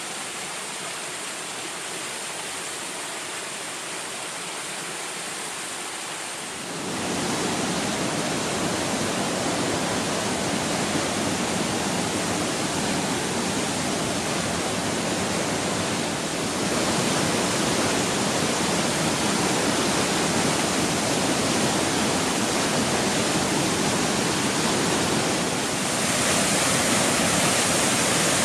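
A waterfall's steady rush of falling water. It steps up louder about a quarter of the way in, and a little louder again twice later.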